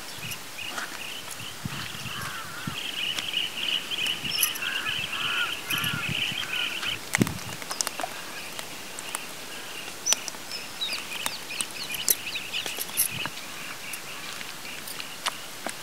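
Hands squishing and mixing wet green masala paste with yogurt in a pot, soft wet squelches and small clicks, while birds chirp and call throughout, busiest in the first half.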